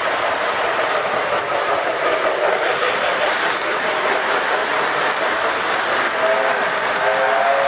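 Lionel O-gauge model train cars rolling past close by on curved FasterTrack: a steady rolling noise of metal wheels on the rails, with a faint wavering tone near the end.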